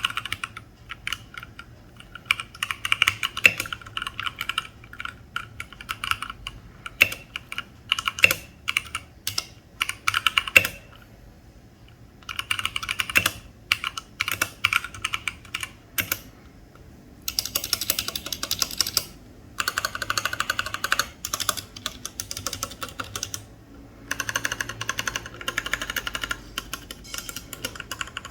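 Typing test on a mechanical keyboard fitted with Akko Tokyo World Tour R2 PBT keycaps: runs of quick key clacks with short pauses, becoming denser and faster from a little past halfway.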